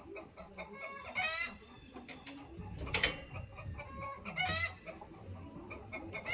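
Bantam chickens clucking, with short pitched calls about a second in and again past four seconds. A sharp knock about three seconds in is the loudest sound.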